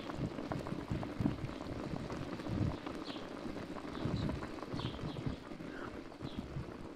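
Stuffed whole chickens simmering in broth in a large open aluminium pot, the liquid bubbling and popping irregularly. A few short high chirps sound faintly now and then.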